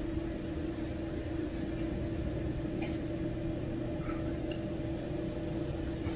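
Steady low mechanical hum with a constant tone over a low rumble, with a couple of faint ticks in the middle.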